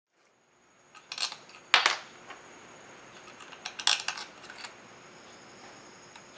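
Small metal parts and tools clinking and knocking as a chainsaw is taken apart: a few light clinks about a second in, a sharper metallic knock just under two seconds in, and another cluster of clinks around four seconds in.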